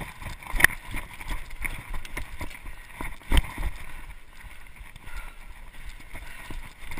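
Mountain bike rolling fast over a dirt singletrack: tyre noise on the trail with a constant rattle of clicks from the bike, and two sharp knocks as it hits bumps, one about two thirds of a second in and a louder one about three seconds in.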